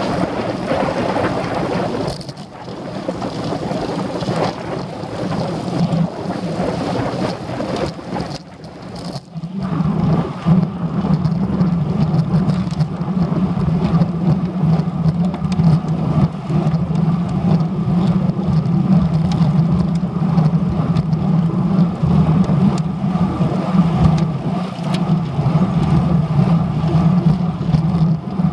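Wind buffeting the microphone of a camera mounted on a moving road bicycle, mixed with road noise, as it rides along asphalt. About ten seconds in, a steady low drone sets in and holds.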